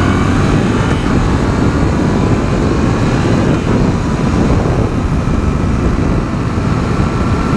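Heavy wind rush on the microphone of a moving motorcycle at road speed, with the 2015 Yamaha FZ-07's parallel-twin engine running steadily underneath.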